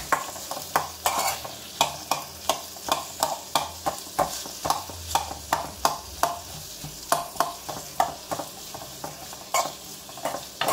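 Sliced onions, garlic, ginger and green chillies sizzling in hot oil in a metal kadai while a metal spatula stirs them. The spatula scrapes and knocks against the pan about three times a second. This is the sauté stage of a gravy base, frying until the raw smell goes.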